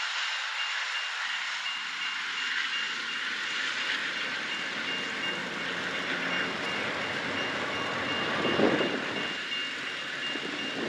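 Double-deck Amtrak Superliner passenger cars roll past at low speed with steady wheel-on-rail rumble. A grade-crossing warning bell beeps rapidly and evenly throughout. One louder rumble comes about three-quarters of the way through.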